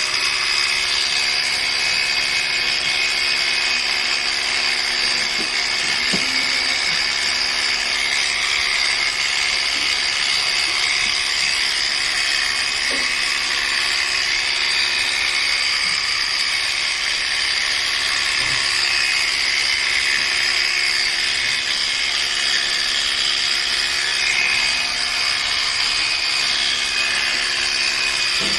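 Electric sheep-shearing clippers running steadily with a constant high whine while trimming a sheep's wool.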